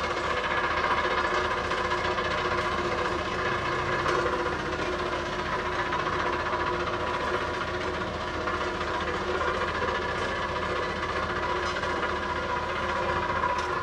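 Diesel engine of a Dynapac single-drum soil compactor running steadily as the roller drives across a gravel bed, compacting it.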